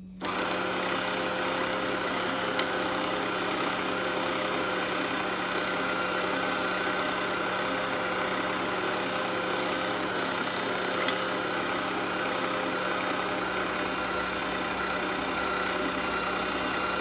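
Electric pasta machine switched on, its motor running steadily with a hum while a sheet of pastry dough is fed through the rollers to thin it. It starts suddenly, gives two faint clicks along the way, and cuts off near the end.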